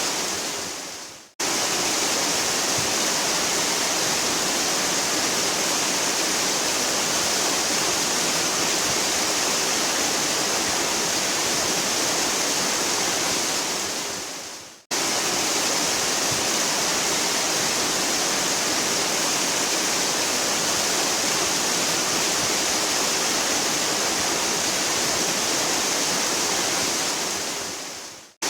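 Waterfall rushing steadily with an even hiss-like roar. Three times, about a second in, halfway through and at the end, it fades away over about a second and drops to silence for an instant, then comes straight back: the seam of a looped recording.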